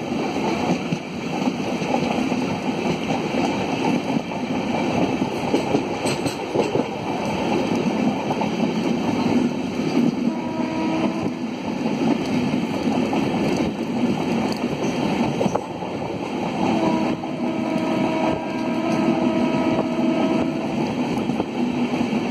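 Moving train heard from a carriage window: a steady rumble of the wheels on the track mixed with wind rushing past. A steady high tone sounds twice, briefly about halfway and for a few seconds near the end.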